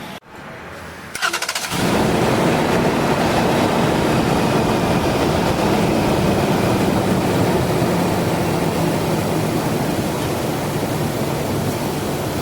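Toyota Land Cruiser engine started: the starter cranks briefly about a second in, then the engine catches and runs steadily at idle.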